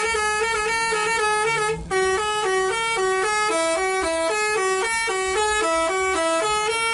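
Bus's Basuri 'telolet' musical horn playing a fast tune of short stepped notes, with a brief break a little under two seconds in.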